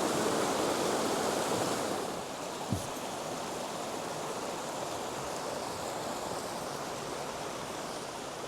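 Waterfall rushing steadily, a little quieter from about two seconds in, with one short low thump near three seconds.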